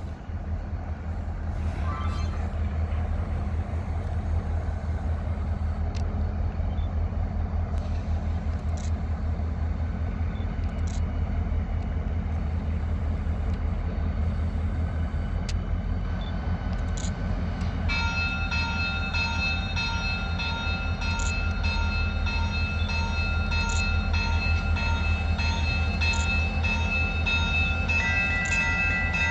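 Two EMD diesel locomotives, a GP38-2 leading a GP40-2L, run with a steady low rumble as they creep forward. About two-thirds of the way through, a bell starts ringing at an even beat, and a second higher tone joins it near the end.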